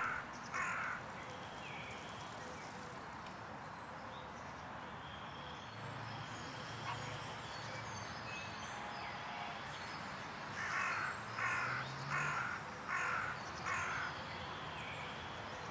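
A crow cawing: one call near the start, then a run of five caws about two-thirds of a second apart some ten seconds in, over faint outdoor background noise.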